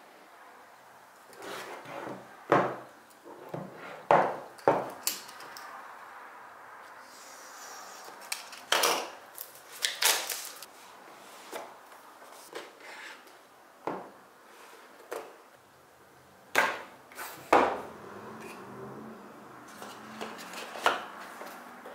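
A cardboard product box and its packaging being handled on a tabletop cutting mat: the box slid and set down, the lid pulled off, and the contents lifted out. Short rubbing and rustling with about eight sharp knocks spread through, as pieces are put down on the mat.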